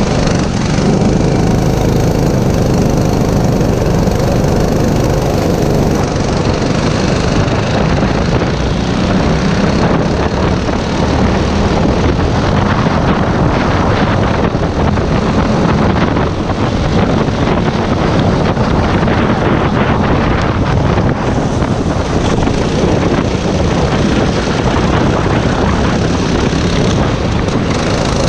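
Racing go-kart engine running hard, heard from the driver's seat, with other karts' engines close around it.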